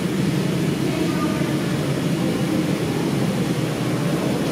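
Steady low rumble of an R142A subway train approaching through the tunnel, carrying into the station.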